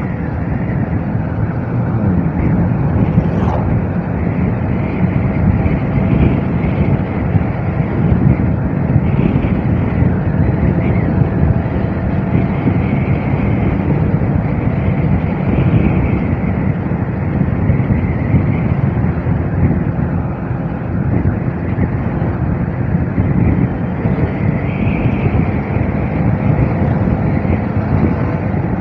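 Motorcycle riding at speed: a steady rush of wind on the rider's microphone, with the engine running underneath.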